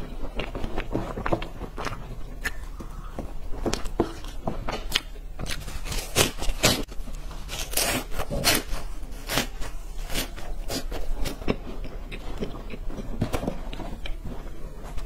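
Close-miked biting and chewing of crunchy, dry stick-shaped food, with sharp, irregular crunches that are loudest around six to nine seconds in.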